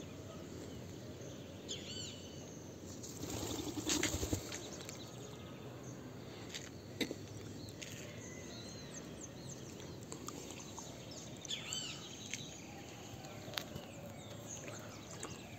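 Quiet outdoor ambience with a few faint, short high chirps from small birds, twice. A brief rustle comes about three to four seconds in, with a couple of sharp clicks later.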